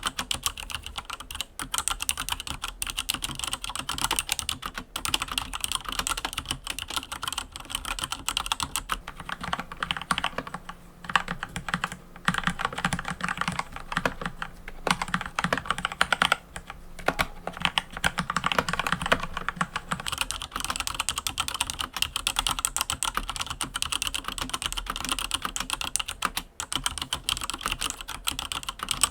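Typing on a mechanical keyboard: a fast, continuous stream of key clacks with a few brief pauses.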